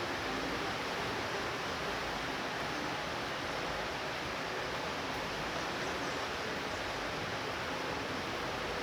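Light rain falling steadily, an even hiss with no thunder heard.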